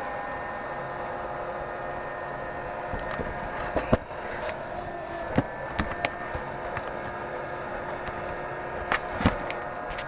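A 12 V, 0.2 A computer fan running with a steady whir, while a few sharp knocks sound over it.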